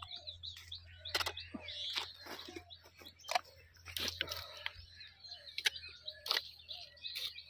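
Small birds chirping, over a series of sharp clicks and soft squelches from bamboo sticks being pushed into wet mud.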